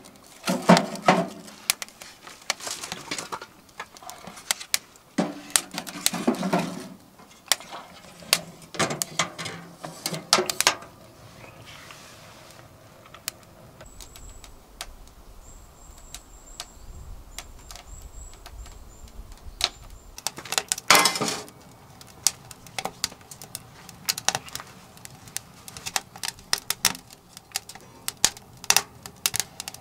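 Split firewood being loaded into a steel wood stove's firebox: repeated knocks of wood on metal and clanks of the stove door, in bursts over the first ten seconds. Later, scattered metal clinks and one louder clatter as a steel frying pan is handled on the stovetop.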